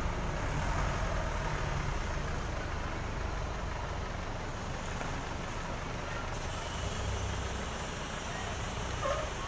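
Large tour bus's diesel engine idling, a steady low rumble.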